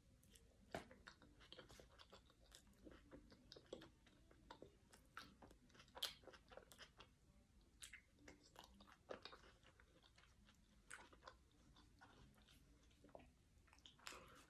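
A person biting into and chewing a soft taco filled with black olives, lettuce and ground chicken, with faint, irregular wet mouth smacking.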